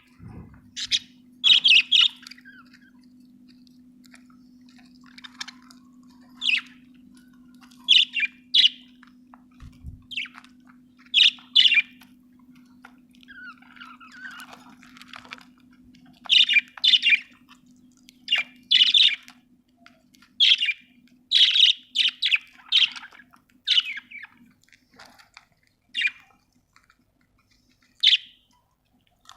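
Budgerigars chirping and warbling in short, sharp calls that come in irregular clusters, over a steady low hum that fades out near the end.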